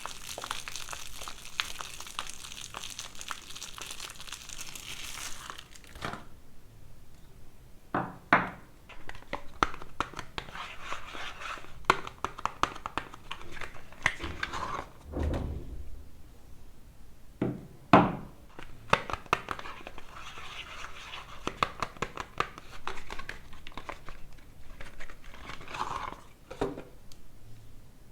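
Soap wrappers crinkling and tearing as soap bars are unwrapped by hand, with a dense stretch of crinkling that stops suddenly about six seconds in, then intermittent rustles and several sharp thunks of bars being handled or set down.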